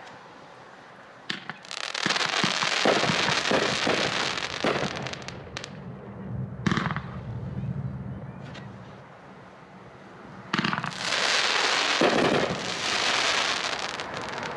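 A 'Don't Run' consumer firework cake firing shots with crackling tails. A sharp launch pop comes a little over a second in, followed by several seconds of dense crackling that dies away. A second volley of pops and crackling starts near the end.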